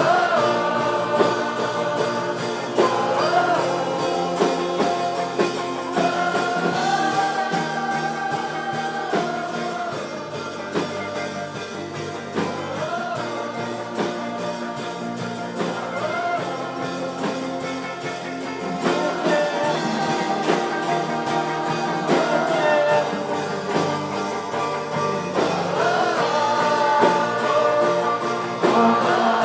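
Live worship band playing: acoustic and electric guitars under male and female lead vocals, with a crowd of young voices singing along.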